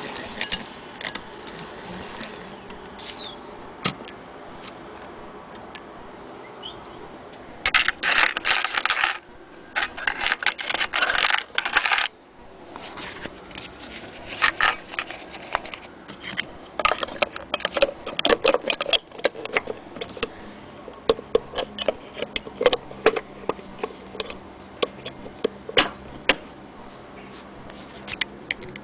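Antique hand-crank Singer 99K sewing machine being handled and worked, giving irregular metallic clicks and rattles from its works. There are two dense stretches of rattling about eight and ten seconds in, then a run of quick clicks from about seventeen seconds.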